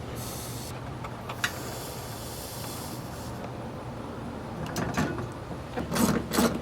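Work and handling noises over a low steady hum: a few light clicks and stretches of scraping hiss, then, near the end, a run of quick rasping strokes at about three a second, like a hand tool being worked.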